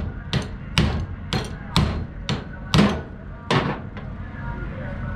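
Hammer blows on a driveshaft carrier bearing to knock it off the driveshaft. There are about eight sharp, ringing strikes at roughly two a second, stopping about three and a half seconds in.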